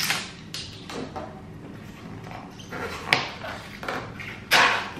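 Slime with tiny beads mixed in being squeezed and stretched by hand, giving squishy, popping noises in short bursts. The loudest burst comes near the end.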